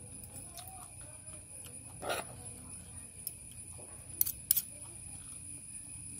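A person eating: quiet chewing and mouth sounds, with a short louder sound about two seconds in and two sharp clicks of a steel fork and spoon against a plastic tray about four seconds in.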